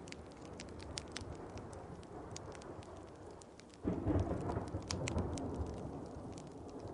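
Wood fire crackling with scattered sharp pops over a steady rain, and a roll of thunder that breaks in suddenly about four seconds in and slowly fades.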